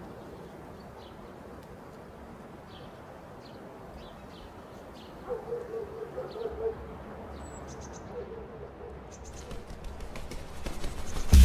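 Outdoor evening ambience: small birds chirping now and then, with a few groups of lower animal calls about a third and two thirds of the way in. A low rumble comes in past the middle, and a rising noise with clicks builds near the end.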